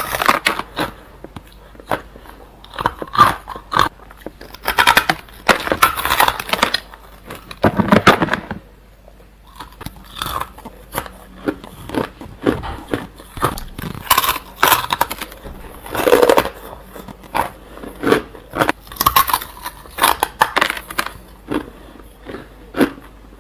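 Ice cubes being bitten and crunched between the teeth: repeated sharp, crackling crunches in bursts, with short pauses between bites.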